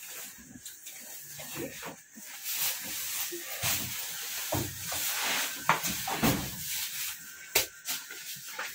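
Heavy woven plastic sacks being shifted and stacked: hissing rustles and scrapes of the sack fabric, with a couple of sharp knocks in the second half.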